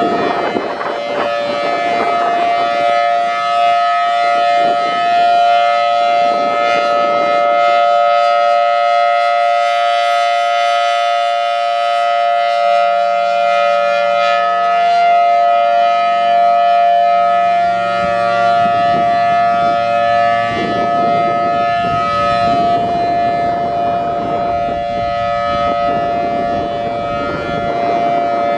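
Federal Signal Thunderbolt 1000T outdoor warning siren sounding its steady full-alert tone: two close pitches sound together as one sour chord, held level without rising or falling. Gusts of wind rumble on the microphone near the start and again in the later part.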